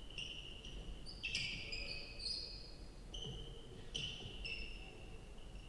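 Basketball shoes squeaking on a gym floor during one-on-one play: a run of short and held high-pitched squeals, with a sharp knock about a second in.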